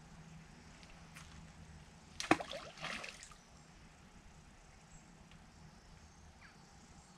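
A cast fishing rig lands in the river with a splash a little over two seconds in, followed by about a second of fainter splashing and clicks.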